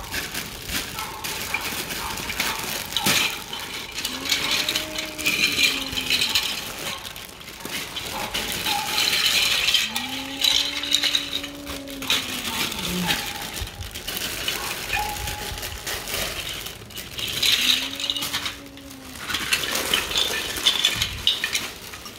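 Plastic LEGO DUPLO bricks rattling and clicking against each other as they are handled, with louder clatters three times. Three drawn-out tones rise and fall in pitch alongside.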